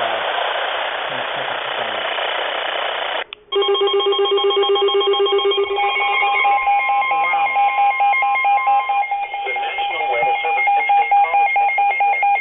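Weather radio static hiss, then after about three seconds several weather alert radios sound their alarms at once: steady alert tones layered with fast pulsing electronic beeps, signalling an incoming flood warning.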